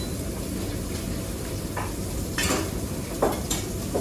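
Metal pans and utensils clanking in a commercial kitchen, a handful of sharp clanks in the second half over a steady low rumble of kitchen noise, with food sizzling on the stove.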